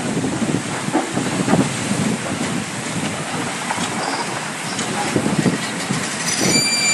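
Wind buffeting the microphone over open sea water and waves, in gusts. A thin high tone with overtones starts near the end.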